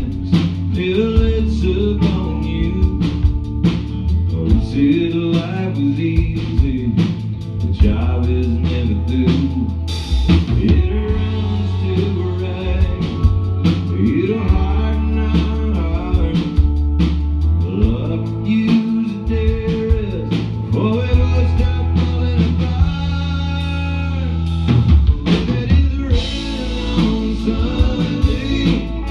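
Live band performing a country-rock song: a man singing lead over electric guitars and a drum kit, with a steady bass line underneath.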